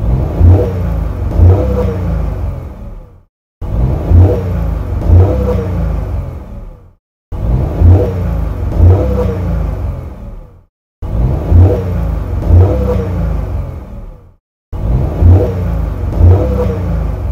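Car engine revved twice in quick succession, each blip rising and falling in pitch, then settling back and dying away. The same roughly three-and-a-half-second clip repeats five times with a short silent gap between each.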